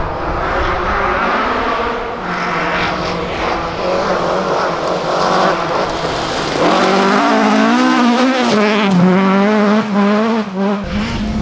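Ford Escort Mk2 rally car's engine at full throttle on a gravel stage, the revs rising and falling quickly with throttle lifts and gear changes as the car comes past close by.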